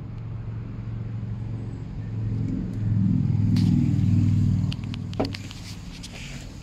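Lotus Elise S2 111S's 1.8-litre Rover VVC four-cylinder engine idling, heard from inside the cabin. The hum grows louder for a couple of seconds midway, then settles back, with a sharp click and a few light knocks near the end.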